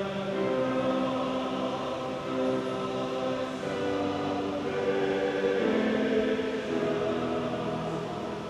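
A group of voices singing a slow liturgical chant together in long held notes that step from one pitch to the next.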